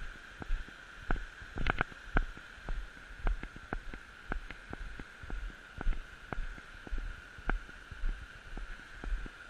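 Footsteps of someone walking on packed snow, heard as regular short knocks and clicks about two a second, over a steady high hum.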